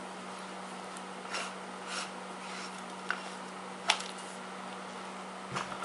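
Quiet handling sounds: a few soft rubs and short clicks, with small clicks near the end, over a steady low hum.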